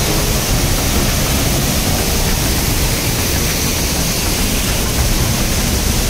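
Waterfall pouring down close by: a loud, steady rush of falling water with no let-up.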